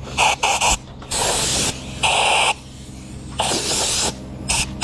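Compressed air from a hose blow-gun nozzle hissing in a series of blasts, clearing drilling dust out of drilled anchor holes in a block column before they are filled with epoxy. Three quick puffs come first, then three longer blasts of about half a second each, then two more quick puffs near the end.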